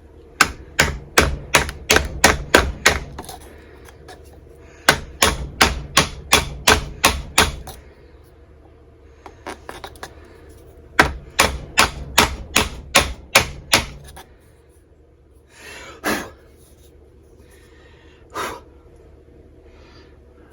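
Hammer tapping on the end of a 1-inch PVC pipe, driving a new upper crankcase seal evenly down into a 1957 Johnson FD-11 outboard's crankcase. Three runs of quick, sharp taps, about three or four a second, with short pauses between them.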